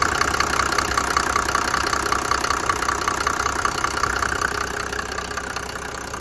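1991 Mercedes-Benz 350SD's turbodiesel straight-six running with an even, rapid diesel clatter and no misfire, its broken camshaft replaced. The clatter eases slightly near the end.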